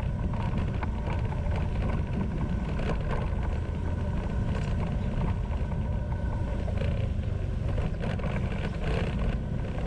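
Motorbike riding at a steady speed: a continuous low engine and road rumble with no sudden changes.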